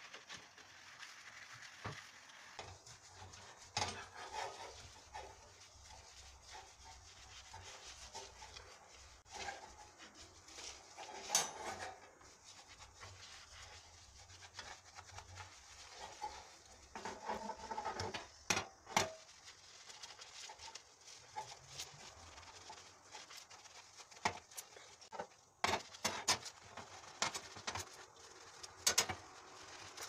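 A soapy sponge scrubbing a gas hob and its black metal pan-support grates. The rubbing runs on throughout, broken by sharp clinks and knocks as the metal grates shift and tap against the counter, most often in the second half.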